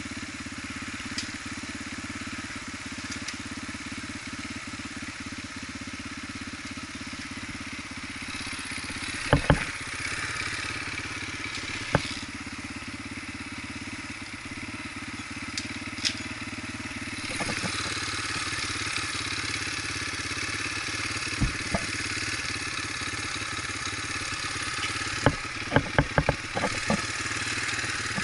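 Dirt bike engine running at a steady pitch, with a few sharp knocks and clatters along the way and a quick cluster of them near the end. The engine gets somewhat louder a little past halfway.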